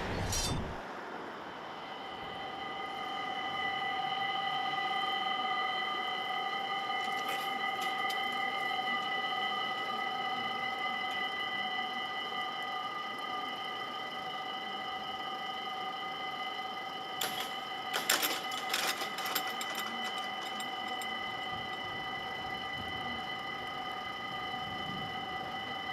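Electronic warning bells of a Dutch level crossing ringing steadily, starting a couple of seconds in, as the crossing closes for an approaching train. A brief cluster of knocks comes about two-thirds of the way through.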